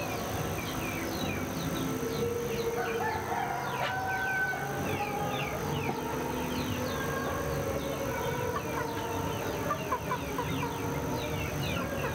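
A rooster crows from about two to five seconds in, over a continuous chorus of small songbirds chirping in quick, rapid notes.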